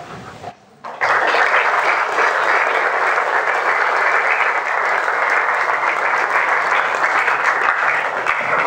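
Audience applauding. It breaks out suddenly about a second in and keeps up steadily.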